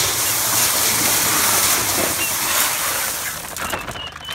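Black oil sunflower seeds pouring from a feed sack into a galvanized steel trash can: a steady rushing hiss that tapers off near the end. A few short bird chirps sound faintly near the end.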